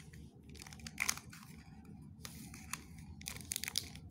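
Plastic packaging crinkling and tearing in bursts as a puzzle cube's wrapping is handled and opened.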